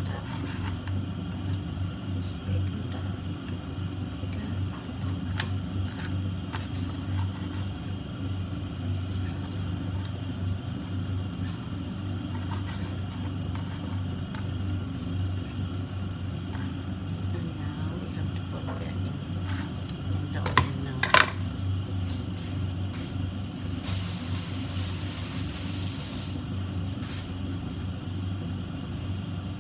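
Steady low hum of a motor or fan, with a few light clicks and a sharp double clink of dishes or utensils about twenty seconds in, then a short hiss a few seconds later.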